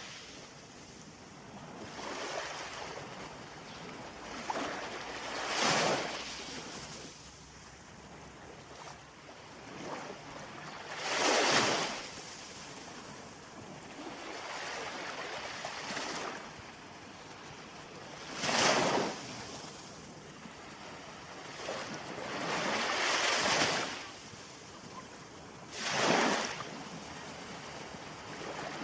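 Ocean waves breaking on the shore: a steady hiss of surf with loud surges of breaking water about every five or six seconds.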